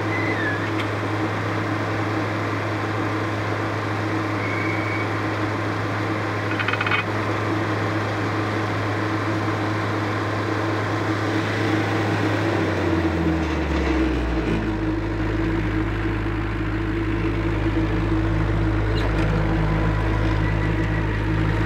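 A 2015 Carlton SP4012 stump grinder's 44 hp turbo diesel Kubota engine running steadily at high revs with the cutting wheel spinning free. About 13 s in, the engine pitch drops smoothly as it is throttled down, then runs steady at the lower speed.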